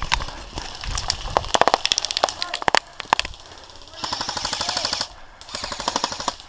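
Airsoft guns firing rapid full-auto bursts: a short burst about a second and a half in, a few single shots, then a second-long burst near the middle and another shorter one near the end.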